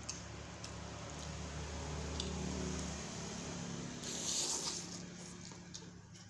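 Person eating spicy instant noodle soup with wet chewing, and a loud airy slurp of noodles about four seconds in. A few light clicks, as of fork and spoon on the bowl, come near the start, over a steady low hum.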